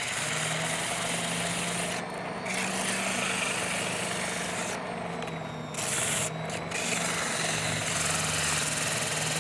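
80-grit sandpaper rasping against a cork ring rod handle as it spins on a rod-building lathe, over the lathe motor's steady hum, taking the cork down to shape. The rasp eases for a moment about two seconds in and again about five seconds in.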